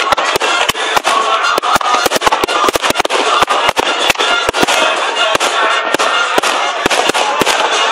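Fireworks display: a rapid, irregular barrage of bangs and crackles from many shells bursting together, over a crowd's background noise. The bangs stop shortly before the end.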